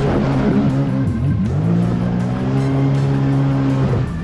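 Jet ski engine under throttle with water rushing past the hull. The engine note dips about a second in, rises again and holds steady, then eases off briefly near the end.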